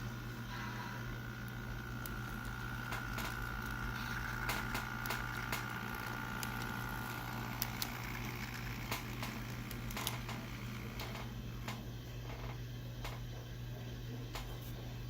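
HO scale model locomotive running on its track: a steady electric-motor whine that fades away about eight seconds in, with scattered sharp clicks, over a steady low hum.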